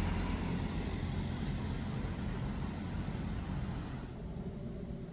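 A car driving past close by and pulling away, its engine and tyre noise fading over a few seconds.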